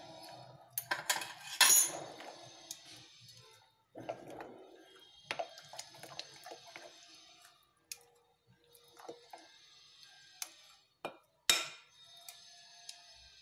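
A metal spoon stirring thick semolina idli batter in a glass bowl, scraping and clinking against the glass at irregular moments amid soft wet mixing sounds. The loudest clinks come about a second or two in and again near the end.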